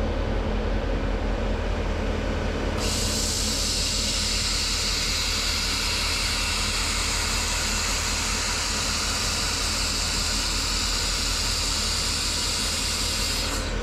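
xTool MetalFab handheld laser welder welding thin stainless steel sheet: a steady machine hum, joined about three seconds in by a loud, steady hiss from the welding gun that holds until just before the end.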